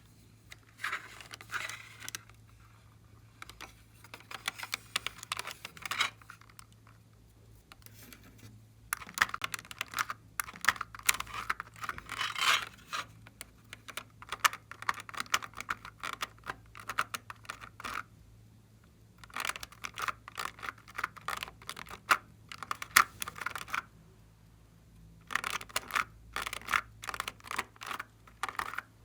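Glossy slime being squished and kneaded by hand, giving dense runs of sticky clicks and pops in bursts of a few seconds with short pauses between.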